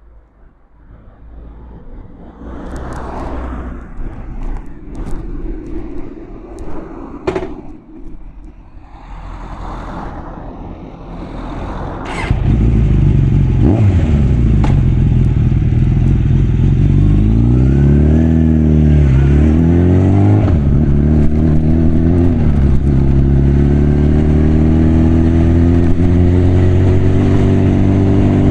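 Suzuki GSF 650 Bandit's inline-four with a Mivv aftermarket exhaust starting up about 12 seconds in, after some quiet clicks and handling noises. The engine drops to a loud idle, is blipped twice so the revs rise and fall, then settles into steady running.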